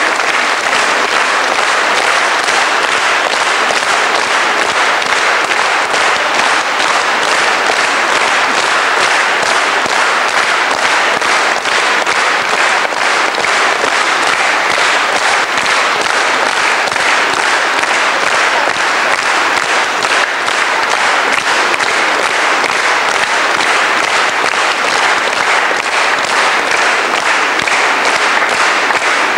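A church congregation applauding steadily: a dense, even clatter of many hands clapping.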